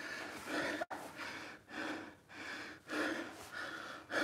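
A man breathing hard, still winded after a set of jumping exercises: quick, regular breaths in and out.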